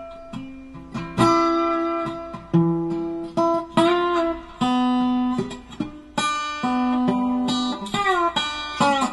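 Background music on guitar: single notes picked one after another, ringing on, with a few notes sliding in pitch.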